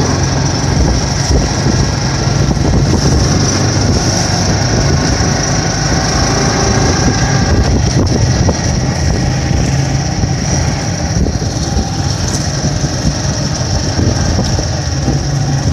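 Vehicle engine running steadily with road noise, heard from inside the passenger cabin: a constant low hum under a steady high hiss, the hum easing a little midway and coming back near the end.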